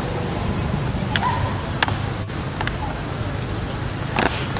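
Outdoor background with a steady high insect drone, broken by a few short sharp clicks and brief squeaks about one, two and four seconds in.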